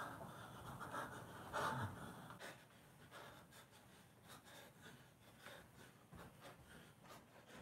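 A man breathing hard, loudest in the first two seconds or so, then faint scattered rustles and small knocks as he moves about.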